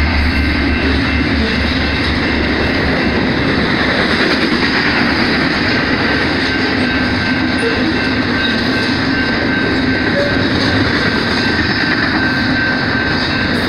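Double-stack intermodal well cars passing at speed: a loud, steady rumble and clatter of steel wheels on the rails, with a thin steady high whine above it.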